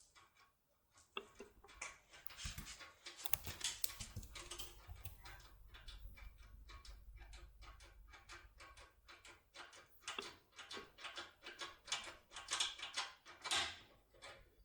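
Tornado 2 RS7 lock-opening tool, fitted with self-adhesive foil, being forced and rocked in a cylinder lock: a quick, irregular run of faint clicks and light crunching from the pins and keyway.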